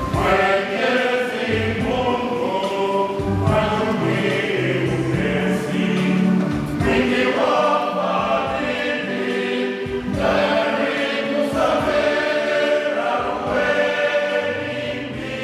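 A choir singing a gospel or church song over instrumental backing with a steady beat.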